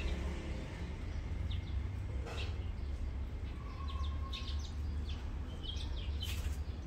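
Scattered short, high chirps, most of them in the second half, over a steady low background rumble.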